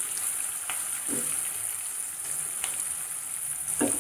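Green chillies and curry leaves sizzling in hot oil in a nonstick pan, stirred with a nylon slotted spatula that gives a few light taps against the pan.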